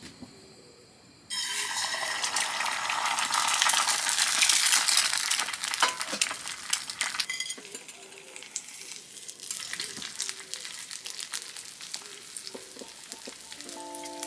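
Food sizzling in a hot pan: the sizzle starts suddenly about a second in, is loudest a few seconds later, then settles to a quieter crackle with scattered pops.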